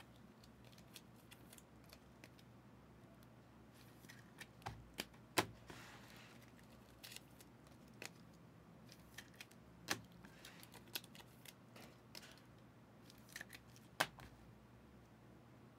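Faint handling of trading cards: quiet rustles and small clicks as cards are slid and flicked against each other, with a few sharper taps about five, ten and fourteen seconds in.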